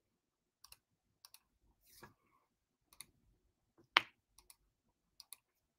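A few scattered light clicks, the sharpest and loudest about four seconds in.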